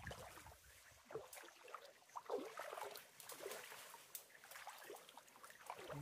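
Faint, irregular trickling of a shallow spring-fed stream running over stones.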